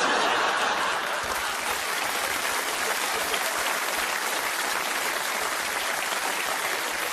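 Audience applauding, breaking out all at once and holding steady.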